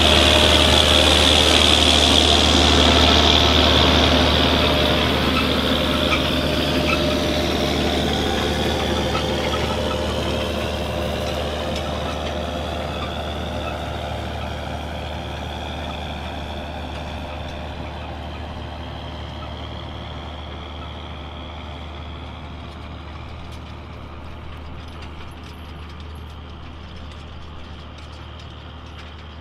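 Farm tractor engine running under way, loud at first and then fading steadily as the tractor moves away.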